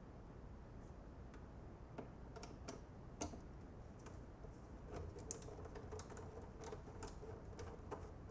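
Faint, irregular light clicks and taps of a Phillips screwdriver working small screws out of the bike's belt guard, with the screws being handled.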